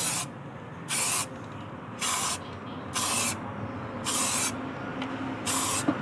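Aerosol can of high-temperature spray paint hissing in six short bursts, about one a second, as paint is sprayed onto the rusted inside walls of a microwave oven cavity.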